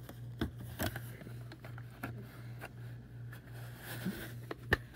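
Handling noise from a plastic VHS cassette being turned in the hands, with a few sharp clicks, the loudest near the end, and soft rustling, over a steady low hum.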